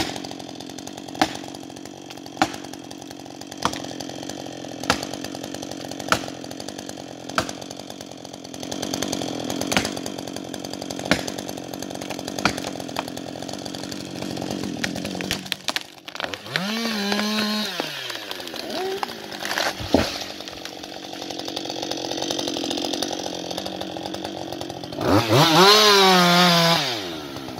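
Husqvarna 560XP II two-stroke chainsaw running. For the first half it is steady and fairly low, with a sharp click about every second and a quarter. Then the throttle is opened and released several times, the engine pitch rising and falling, with the loudest rev near the end.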